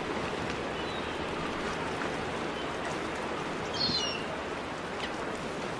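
Steady rain-like hiss with a few short bird chirps, the brightest about four seconds in.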